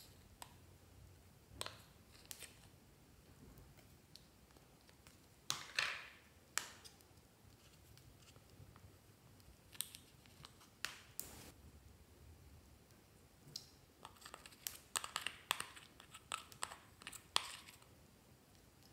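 Metal dotting tool clicking and scraping against a small hard plastic toy case as slime is dug out of it: scattered faint clicks, a longer scrape about six seconds in, and a quick run of clicks near the end.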